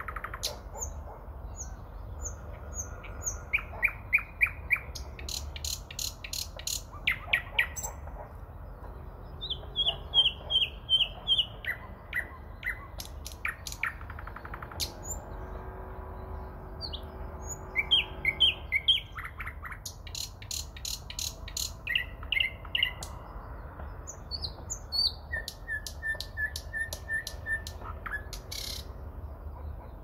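Thrush nightingale singing: separate phrases of fast repeated notes, some dry clicking rattles, others runs of clear whistled notes, with short pauses between phrases.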